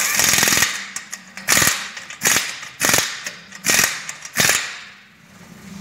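Impact wrench hammering on a van's wheel nuts: one longer run at the start, then five short bursts about two-thirds of a second apart.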